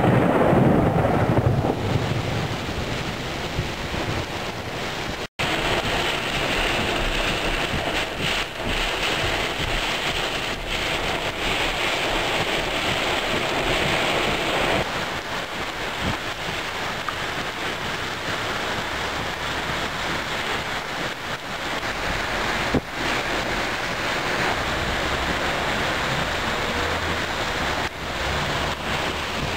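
Heavy thunderstorm rain pouring down, with wind buffeting the microphone. A low rumble of thunder is loudest in the first couple of seconds.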